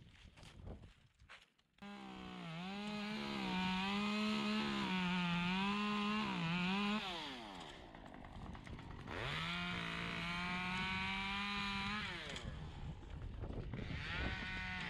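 Two-stroke chainsaw running at high revs, its pitch wavering. It eases off about seven seconds in, revs up again about two seconds later, and eases off again near twelve seconds.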